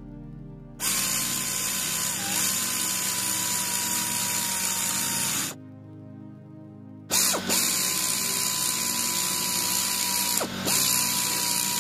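Pneumatic ratchet wrench running down the cylinder-head bolts: two long runs of a steady whine over the air hiss, separated by a short pause. The pitch dips briefly now and then as the tool loads up on a bolt.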